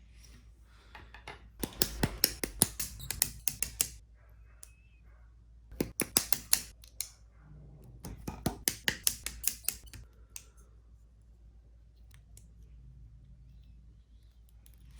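Three bursts of rapid, sharp plastic clicks and snips from hand-building a plastic Gunpla model kit, parts being worked off the runners and fitted together.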